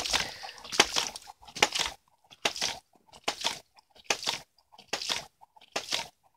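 Homemade hydraulic ram pump cycling at a steady rate: its reciprocating waste-valve plunger slams shut in a sharp clack, often a quick double knock, about every three-quarters of a second. Between the strikes the drive water spurts and splashes out of the valve, heaviest in the first couple of seconds after the flow is opened up. Each clack is the water-hammer stroke that pushes water up the delivery line.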